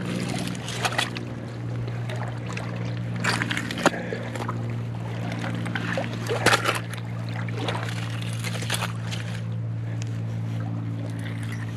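Loose oyster shells crunching and clacking underfoot and under gloved hands on a mudflat, a handful of sharp clacks, the loudest about four seconds in and again midway, over a steady low drone.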